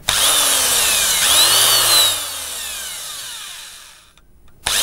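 Small electric hand drill boring a hole in a small model part. The motor starts abruptly, rises and falls in pitch as it runs for about two seconds, then slows and winds down to a stop, and starts again near the end.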